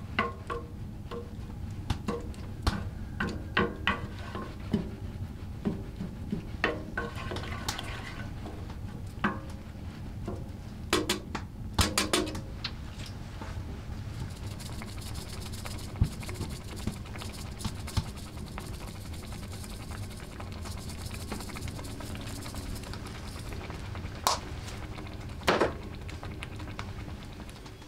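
A spoon stirring a thick tomato sauce in a frying pan on a wood stove, clicking and scraping against the pan for the first dozen seconds. Then the sauce cooks on its own with a steady soft sizzle, with a couple of sharp taps near the end.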